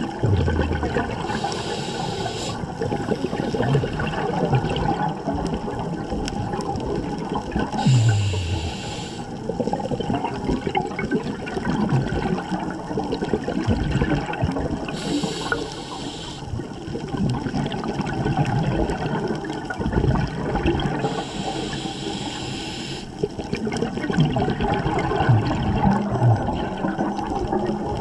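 Scuba diver breathing through a regulator underwater: a high hiss of air about every six to seven seconds, between steady rumbling and bubbling of exhaled air.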